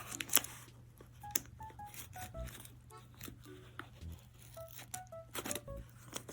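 Cardboard shipping box being worked open by hand: packaging tearing and crackling in quick sharp clicks, mixed with a scatter of short pitched squeaks.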